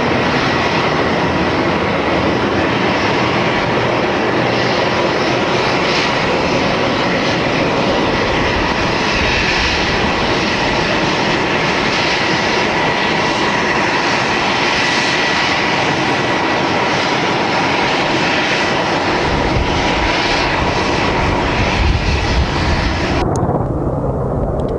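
AH-64D Apache attack helicopter in flight: the steady whine of its twin turboshaft engines and the rush of its rotor. Near the end the high whine cuts off sharply, leaving a lower rumble.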